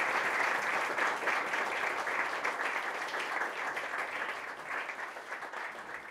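Audience applauding, a dense patter of many hands clapping that slowly dies away over the last few seconds.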